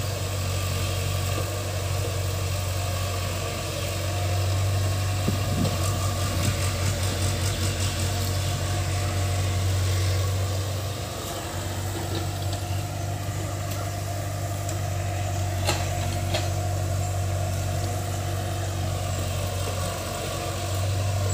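JCB tracked excavator's diesel engine running steadily as the machine digs and swings in wet mud. It grows louder about four seconds in and eases back around eleven seconds, with two sharp knocks about three-quarters of the way through.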